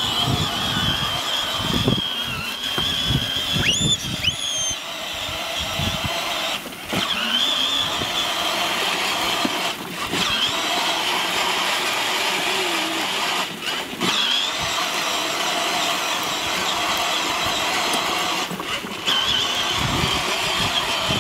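Power Wheels Barbie Jeep ride-on toy driving over grass: its battery-powered electric motors and plastic gearboxes run with a steady high whine, cutting out briefly about four times as the toy stops and starts again.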